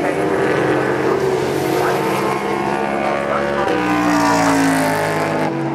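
Endurance race cars running on the circuit, several engine notes overlapping at high revs. About two-thirds of the way through, the engine note changes and falls in pitch as a car passes and backs off.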